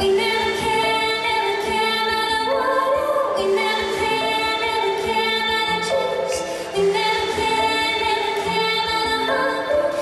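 Female singing in long held notes with cello accompaniment, the chord changing about three and a half seconds in and again near seven seconds.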